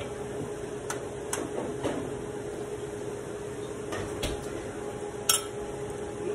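A few light clinks and knocks of kitchen dishes and utensils, the sharpest about five seconds in, over a steady hum.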